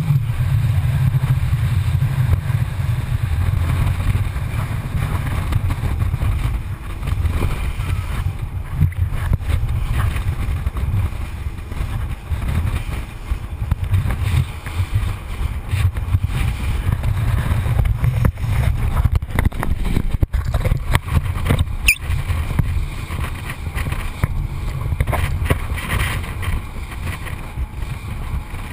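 Rigid inflatable boat running fast through the waves: an uneven, muffled low rumble of engine, wind and hull buffeting, heard through a GoPro's waterproof housing.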